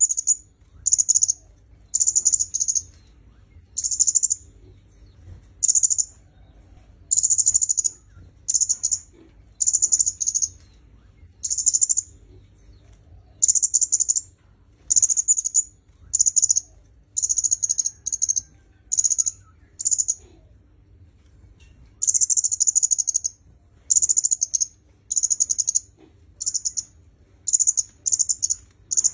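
A kemade kepala merah (red-headed kemade songbird) calling in a steady series of short, high, buzzy trilled notes, about one a second, with a pause of about two seconds past the middle.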